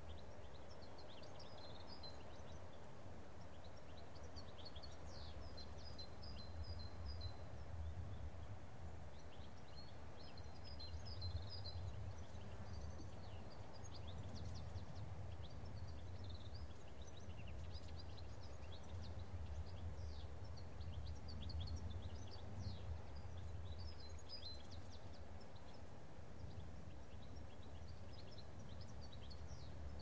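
Countryside ambience: small birds twittering in quick, high chirping runs, scattered throughout, over a steady low background rumble.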